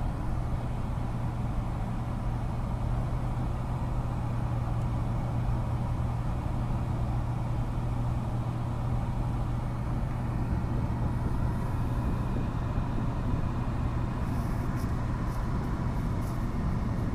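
Steady road noise inside a moving car's cabin at highway speed: a low drone from the tyres and engine, even throughout.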